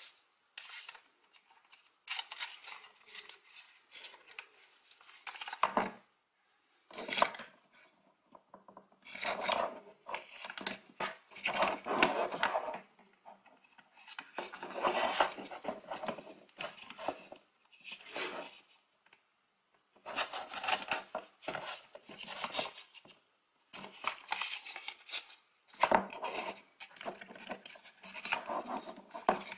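Handling noise from putting together a foam-board toy car: plastic wheels being pushed onto their axles, with irregular bursts of rubbing and scraping of foam board and plastic parts and scattered clicks.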